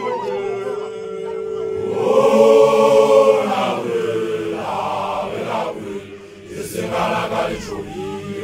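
Voices chanting a song together in long held notes that rise and fall, with a brief drop in loudness about six seconds in.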